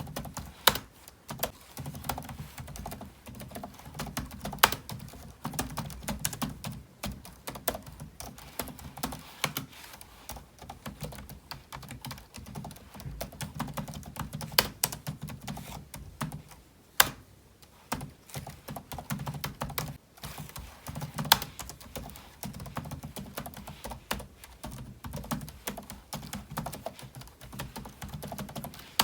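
Typing on a computer keyboard: a steady, fast run of key clacks, with a few louder single keystrokes standing out now and then.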